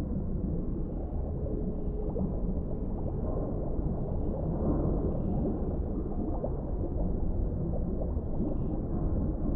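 Underwater ambience: a steady, muffled low rumble of deep water with faint gurgles and small clicks scattered through it.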